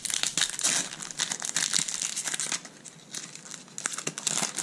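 Foil wrapper of a Pokémon trading-card booster pack being torn open and crinkled by hand. It crackles densely for the first two and a half seconds, goes quieter, then crackles again near the end.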